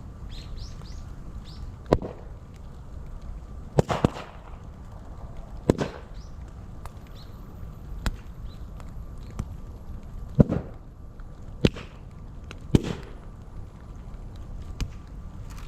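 Moso bamboo burning in an open fire, the hollow bamboo sections bursting with sharp bangs, about ten at uneven intervals, over a steady low noise of the fire.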